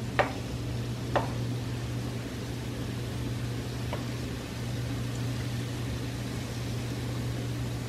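Batter-coated quail eggs frying in oil in a nonstick pan, a steady sizzle over a low hum. A slotted spatula clicks against the pan twice in the first second or so and once more, faintly, about four seconds in.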